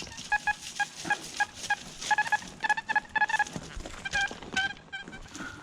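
Metal detector giving repeated short, high beeps over a deep penny target, some of them in quick runs, among the knocks and scrapes of digging.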